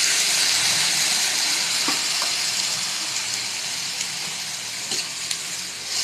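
Marinated chicken pieces sizzling in hot oil in a wok, a loud steady hiss that eases slightly, with a few light clicks of a utensil against the pan.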